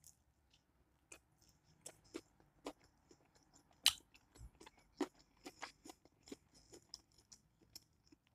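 Close-up chewing of a griddled chicken quesadilla: irregular crisp crunches and mouth clicks, with a few louder crunches about four and five seconds in.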